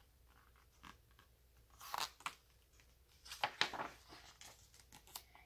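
Page of a hardcover picture book turned by hand: the paper rustles and crackles in two short bouts, about two seconds in and again about three and a half seconds in.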